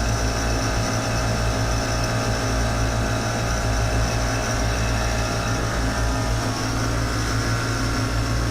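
AAON rooftop HVAC unit running: a steady mechanical hum of its compressors and fans, with a strong low electrical hum and a constant spread of steady tones.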